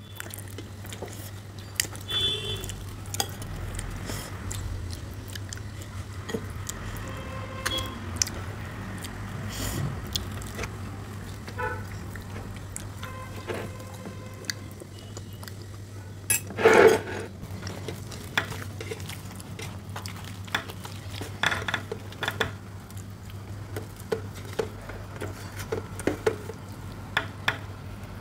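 A steel spoon stirring, scraping and clinking in a steel bowl of curry, with scattered clicks of utensils and fingers on steel plates over a steady low hum. One louder sound comes about seventeen seconds in.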